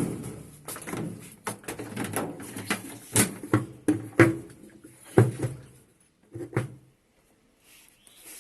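Irregular knocks and clatter of washing-machine parts being handled while the tub is taken apart. It opens with a sharp bang, the knocks come unevenly for about seven seconds, and then they die away.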